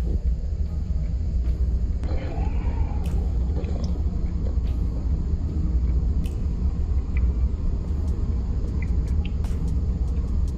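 A steady low rumble, with a few faint clicks scattered through it.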